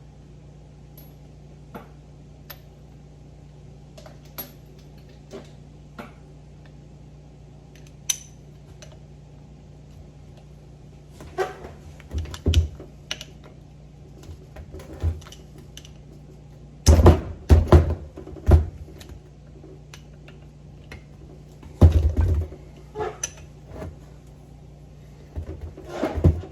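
Metal tools and steering-box parts being handled: scattered light clicks and taps, then several heavier metal clunks and knocks in clusters, over a steady low hum.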